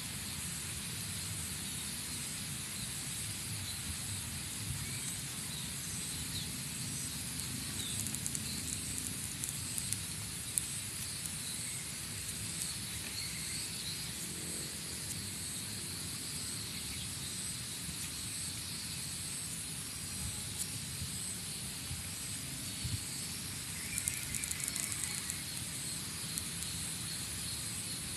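Steady outdoor background: a low rumble with a high hiss and a faint steady high-pitched tone. A few faint clicks and a brief chirp come about two thirds of the way in.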